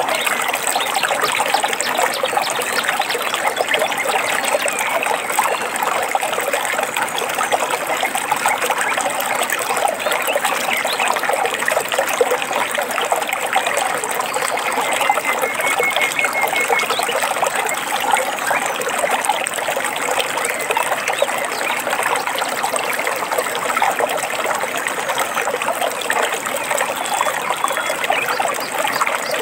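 Running water trickling and babbling steadily, without pause.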